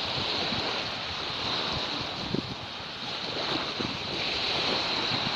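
Sea waves washing onto a sandy beach, with wind buffeting the microphone.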